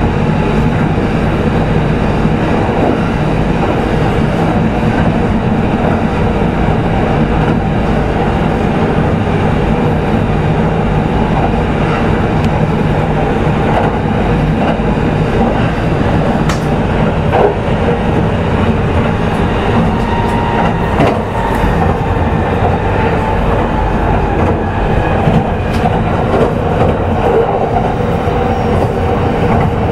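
Kintetsu 22000 series electric motor car running at a steady speed, heard from inside the car: a loud, steady rumble of wheels on rail with a constant whine from the traction motors and gears, and a few short clicks from rail joints.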